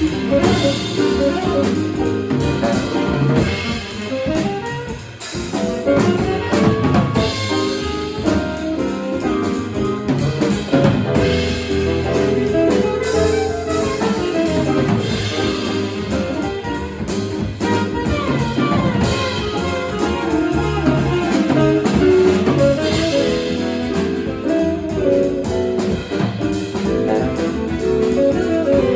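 Jazz quartet playing live: saxophone lines over piano, bass and drum kit.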